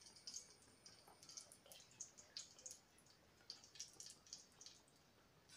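Near silence, broken by faint, irregular ticks and crackles of a spoonful of ghee heating in an aluminium pot on a gas stove.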